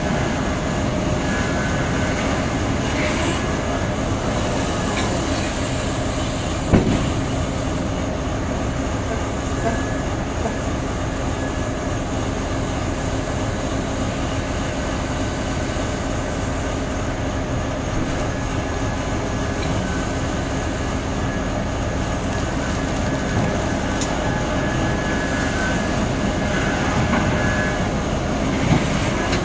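Large diesel mining machinery, a Komatsu hydraulic mining excavator and an XCMG XDE260 mining dump truck, running steadily during loading: a dense, even engine drone with a faint steady whine. A sharp knock sounds about seven seconds in and again near the end.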